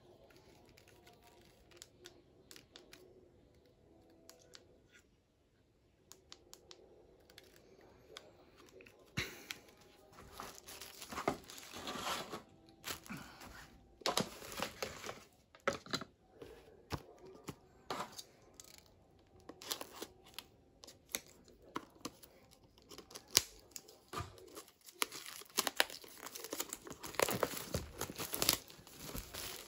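Clear plastic packaging being crinkled and pulled apart by hand, in repeated rustling bursts that start about a third of the way in. Before that there are only a few light clicks of the plastic phone holder being handled.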